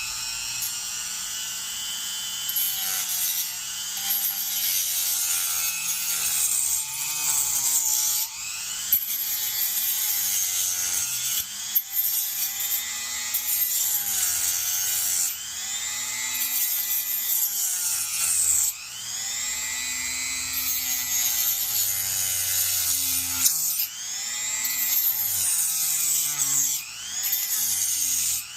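Rotary tool with a small saw-blade attachment cutting through the plastic housing of a dryer control board. Its high whine sags in pitch and climbs back again and again as the blade bites into the plastic and frees up.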